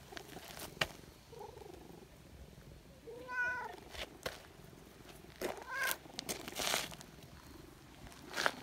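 Tabby-and-white cat meowing: one drawn-out meow about three seconds in, rising and then falling in pitch, and a shorter meow near six seconds, with scattered rustles and scuffs from the dry leaf-strewn ground.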